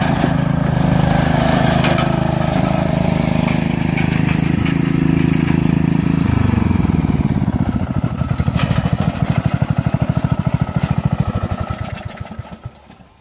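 Riding lawn mower engine running steadily, then about six seconds in it drops in pitch to a slow chugging with separate firing beats and winds down to a stop near the end.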